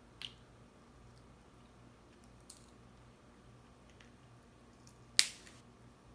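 Crab-leg shells cracking and snapping as crab meat is picked out by hand: a few small clicks, then one sharp, loud crack about five seconds in.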